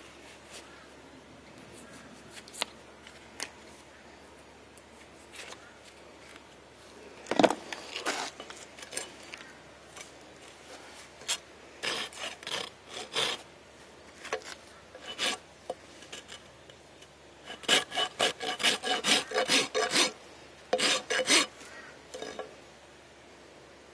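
Hoof rasp filing a horse's hoof during a barefoot trim: scraping strokes come scattered at first, then in runs of quick back-and-forth strokes with short pauses between, busiest in the last third.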